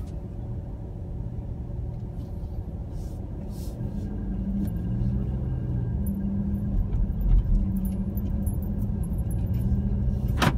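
Car driving, heard from inside the cabin: a steady low engine and road rumble whose pitch shifts from about four seconds in, with a sharp click near the end.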